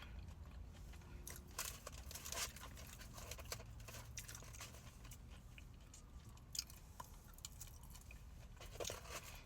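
A person chewing a mouthful of deep-fried crab cake, faint mouth sounds with scattered short clicks, a few bunched together about two seconds in.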